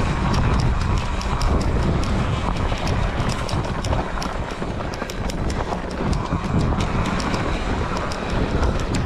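Wind buffeting an action camera's microphone while moving along a trail, with a quick, irregular ticking over it.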